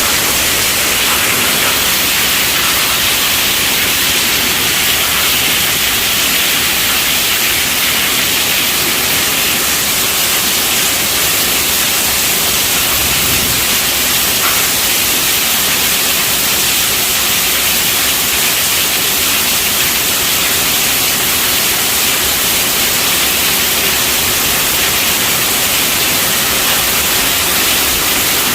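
Heavy rain falling steadily on a tent roof, a dense, even hiss of drops with no breaks.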